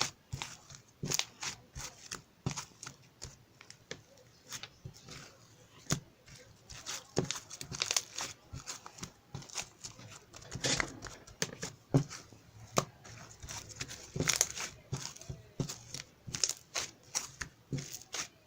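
Close-up crinkling and tearing of packaging material, heard as an irregular rapid string of short rustles and clicks.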